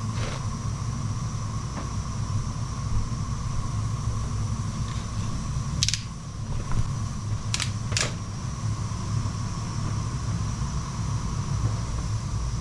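Gas-fired steam boiler running with a steady low rumble and a faint steady whine, broken by a few sharp clicks about six and eight seconds in.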